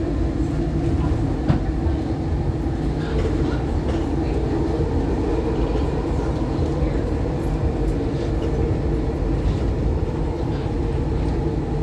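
SEPTA Market-Frankford Line Adtranz M4 subway train running steadily along elevated track: continuous rumble of the cars and wheels on the rails, with a few light clicks scattered through.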